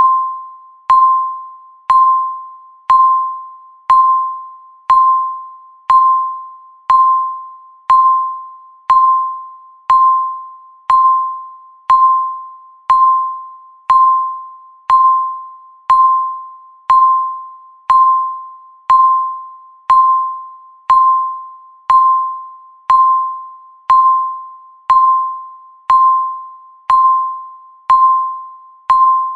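Countdown timer's electronic beep, once a second: a single high tone, each struck sharply and fading out before the next.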